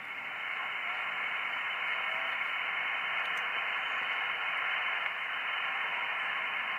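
Radio receiver static: a steady, narrow hiss of band noise from an SDR tuned to the HF freeband, with no signals, fading in over the first half second.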